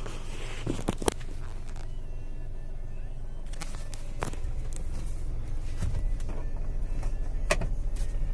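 Maruti Suzuki Wagon R's engine idling, heard as a steady low hum inside the cabin, with a few sharp clicks: three close together about a second in, then single ones around four seconds and near the end.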